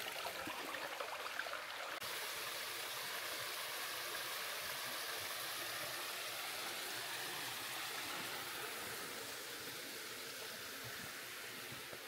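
Stream water running steadily, an even rush that grows slightly fainter near the end.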